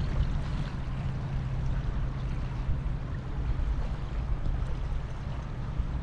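Calm estuary water lapping gently at the sandy shoreline, over a low steady hum.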